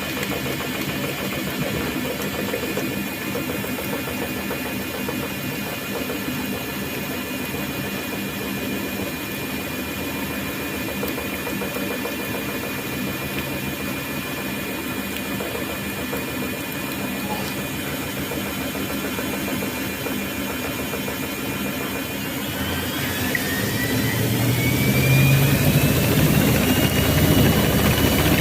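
Thomson washing machine running mid-cycle with a steady hum and whine. About two thirds of the way in, the motor whine rises in pitch and the machine grows louder, then holds a higher steady pitch as the drum speeds up.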